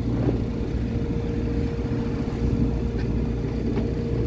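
A CS 36 sailboat's inboard diesel engine running steadily as the boat motors out, a constant low drone with a steady hum.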